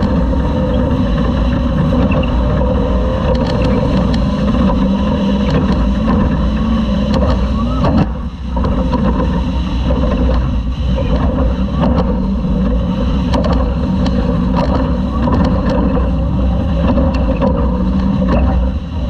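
Class 2000 Toyota off-road race truck's engine running hard under way, heard onboard, with scattered knocks and rattles. The engine dips briefly about eight seconds in, as on a throttle lift or shift, then pulls again.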